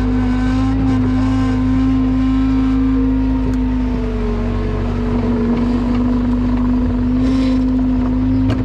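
Vehicle engine running at a steady speed with a strong even hum; the pitch sags a little about halfway through and comes back up.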